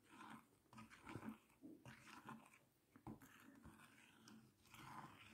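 Near silence, with faint, irregular soft squishing of a spoon stirring thick, wet yellow clay paste in a glass bowl.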